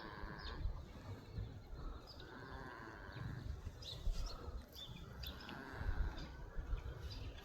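Goat snoring while at rest: three raspy snoring breaths, about three seconds apart, with a few faint clicks around the middle.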